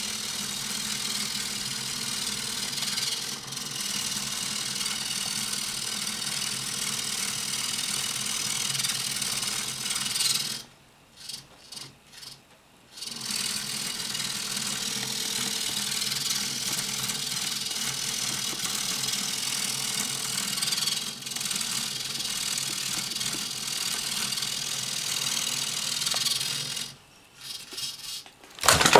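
Hobby servo motors of a stilt-walking humanoid robot buzzing and whirring with a light rattle as its balance control holds it upright. The noise is steady and cuts out twice, for about two seconds just before halfway and briefly near the end.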